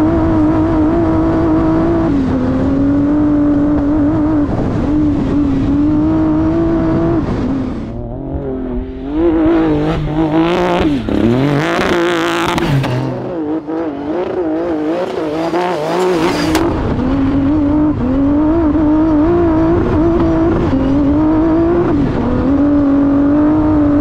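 Honda Ridgeline trophy truck's twin-turbo V6 running hard at high, steady revs, its pitch wavering up and down. For several seconds in the middle the note drops lower and breaks up amid bursts of loud rushing noise.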